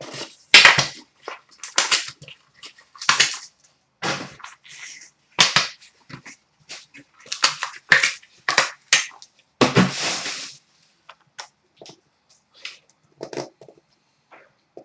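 Trading-card box packaging being handled and torn open: crinkling wrap and cardboard in irregular short bursts, with one longer burst about ten seconds in.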